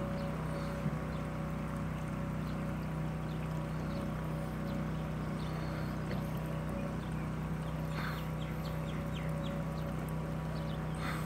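A motor running with a steady low hum that holds one pitch throughout. A few faint short chirps come about eight seconds in and again near the end.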